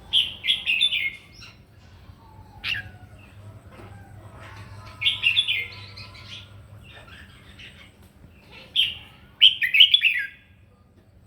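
Red-whiskered bulbul singing its competitive song in short, warbled phrases, about four loud bursts with pauses between them.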